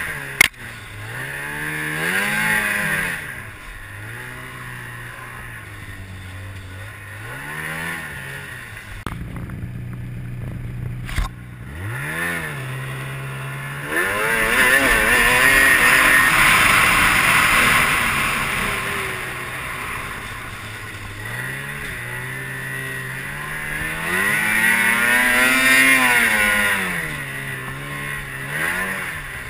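2007 Ski-Doo MX Z 600 X-RS snowmobile's two-stroke twin engine revving up and dropping back again and again under throttle, settling to a low steady run between blips. A rushing hiss rises with the engine during the longest bursts, about halfway through and near the end.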